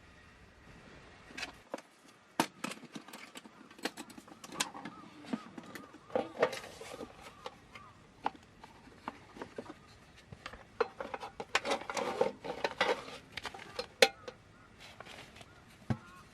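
Irregular clicks, knocks and clatter of small objects being handled, mixed with faint voices.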